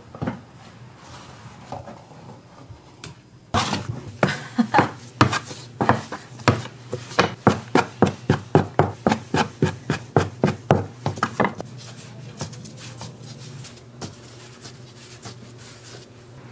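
Dough being portioned by hand on a floured work table: a quick, even run of knocks on the table, about three a second, that starts a few seconds in and stops a few seconds before the end, with quieter rubbing and handling of the dough around it.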